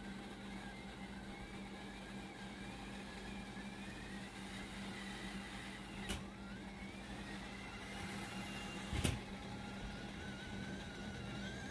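Stainless steel tiered steamer pot on the boil: a steady hum with a faint, wavering high whistle of steam, and two short knocks about three seconds apart, the second louder.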